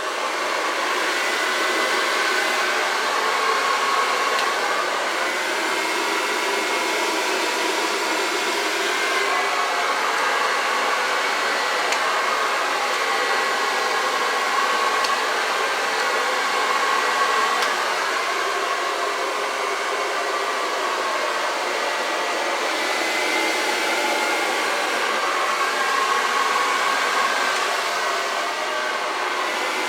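Hair dryer running steadily, switched on right at the start and blowing across wet acrylic paint: a loud, even rush of air with a faint high whine.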